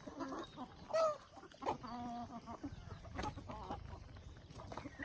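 Chickens clucking, with a few short calls about one and two seconds in.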